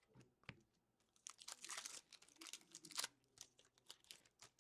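Trading cards and a foil pack wrapper being handled: faint crinkling and light clicks, with a denser rustle of quick strokes starting about a second in and lasting about two seconds.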